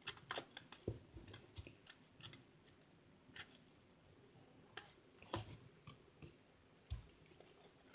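Faint, scattered sticky clicks and taps with a few soft thumps: homemade glue slime being stirred and worked in a container.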